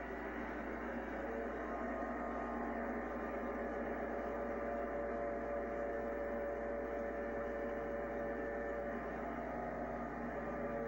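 Diesel locomotive running, played back on a TV and heard through its speaker: a steady drone with a few faint steady tones, over a low electrical mains hum.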